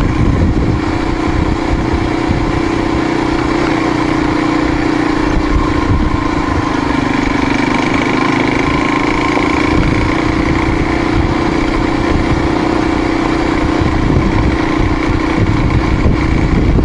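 Dirt bike engine running at a steady cruising pitch while riding a dirt trail. The pitch dips slightly about halfway through and picks back up, over a rough low rumble.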